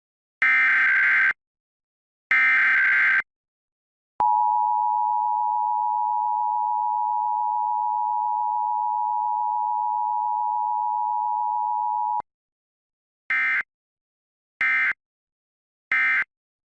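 Emergency Alert System broadcast alert: two roughly one-second bursts of the SAME digital header, then the two-tone attention signal held steady for about eight seconds and cut off sharply, then three short end-of-message data bursts.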